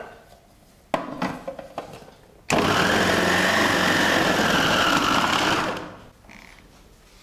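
Electric food processor shredding carrots through its grating disc: after a few clicks of handling, the motor starts abruptly about two and a half seconds in, runs steadily with a whine for about three seconds while the carrots are pushed down the feed tube, then winds down.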